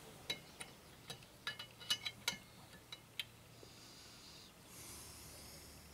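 Faint light clicks and taps of small brass parts being handled and set against a steel machine vise, about a dozen in the first three seconds, followed by a soft hiss near the end.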